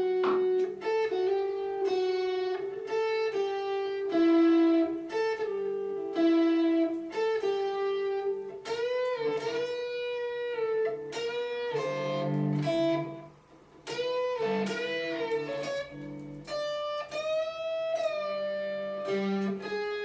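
Electric guitar playing a single-note lead line, picked notes in a quick repeating figure, with several notes bent up in pitch and released. It breaks off briefly partway through, then carries on.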